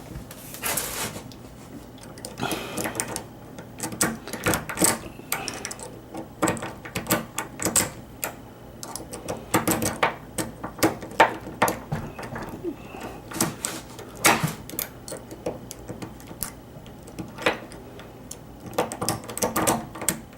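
A lock pick raking in and out across the pin tumblers of a Schlage electronic deadbolt's cylinder under tension: irregular metallic clicks and short scraping rasps, some in quick runs.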